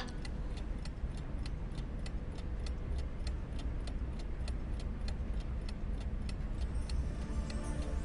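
Steady clock-like ticking, about four ticks a second, over a low hum. Soft held music notes come in near the end.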